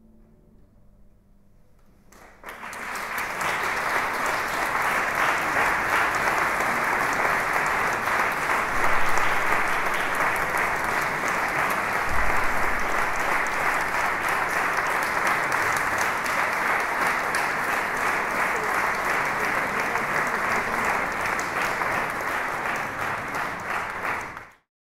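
Audience applauding steadily for about twenty seconds. It starts a couple of seconds in, after the last quiet piano and harp notes have died away, and cuts off abruptly near the end.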